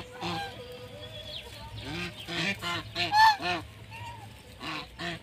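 Domestic geese honking: a single short honk at the start, then a quick run of short, arching honks from about two seconds in, the loudest near the middle, and a couple more near the end.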